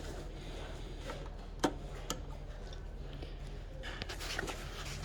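A few small sharp clicks and light rustling of hands handling wiring, as the earth wire is connected to its terminal; the loudest click comes about a second and a half in. A low steady hum runs underneath.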